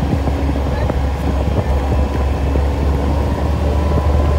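Open off-road vehicle driving along a dirt trail: its engine running steadily under a constant low rumble of wind and road noise.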